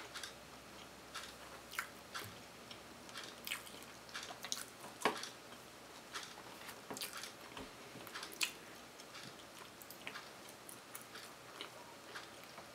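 A person chewing a waffle ice cream sandwich close to the microphone: soft, irregular wet mouth clicks and smacks, the loudest about five seconds in.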